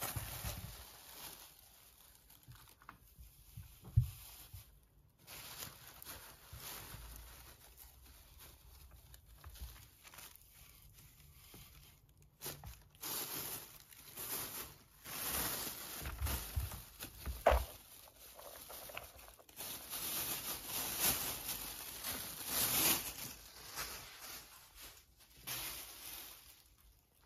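Plastic bags crinkling and dry hay rustling as a hand rummages through a bag of hay, with a couple of dull knocks.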